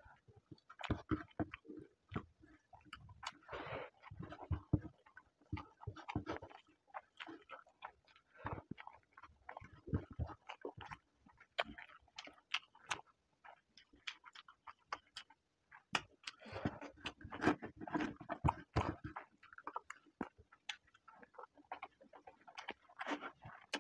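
Close-miked eating sounds: a man chewing mouthfuls of rice and egg curry with wet smacks and mouth clicks, coming in irregular clusters that are busiest twice.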